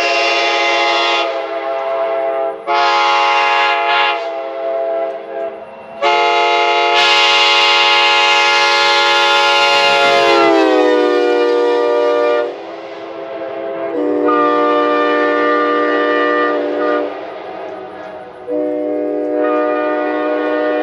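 Nathan K5LA five-chime train horn, an early-80s big-bore build, sounding its chord in five loud blasts. The long middle blast slides down in pitch near its end.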